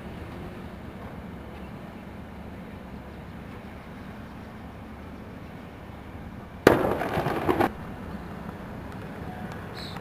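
Steady outdoor background noise with a faint low hum; about two-thirds of the way in, a sudden loud burst of rough noise lasts about a second and stops abruptly.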